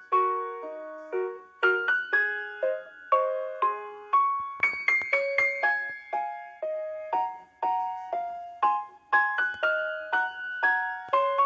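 Background piano music: a light melody of single struck notes, each one fading away.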